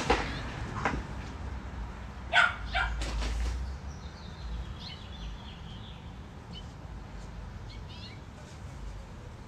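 American Bully dog barking a few times about two and a half seconds in, followed by fainter, higher short calls.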